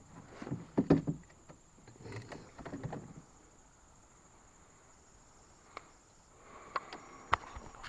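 Insects buzzing in one steady high note, with scattered knocks and rustles, clustered in the first three seconds and again near the end.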